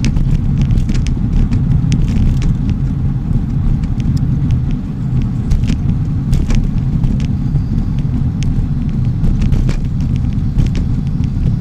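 Steady low rumble of wind and road noise on a microphone riding along on a bicycle, broken by many short clicks and rattles as the bike goes over bumps.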